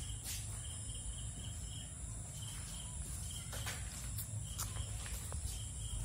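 Insects chirping: a steady high-pitched drone with a lower, pulsing trill that comes and goes every half second or so, over a low rumble and a few faint clicks.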